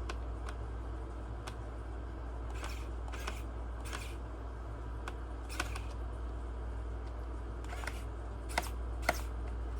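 Small precision screwdriver turning a replacement screw into a laptop's bottom cover: a handful of short clicks and scrapes at irregular intervals over a steady low hum.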